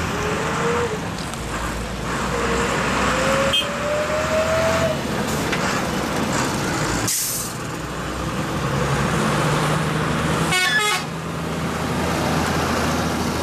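Diesel truck engines running as trucks pull out through a gate. A short hiss comes about seven seconds in, and a brief horn toot a little before eleven seconds.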